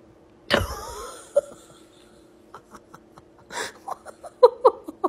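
A pet on a sofa gives a sudden loud, wheezy huff about half a second in. Scattered soft clicks follow, then a run of short squeaky sounds in the last second or so.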